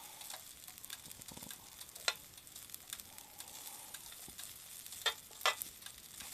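Shrimp pilaf sizzling in butter on an electric hot plate as it is stirred with a metal utensil. There are a few sharp clicks of the utensil against the plate: one about two seconds in and two close together about five seconds in.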